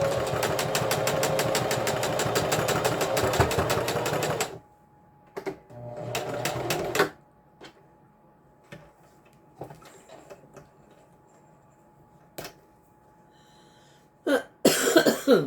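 Electric sewing machine stitching at a rapid, even rate for about four and a half seconds, closing the opening in an elastic waistband, then a second, shorter run of stitches about a second later. Scattered small clicks follow, and a short loud rasping sound comes near the end.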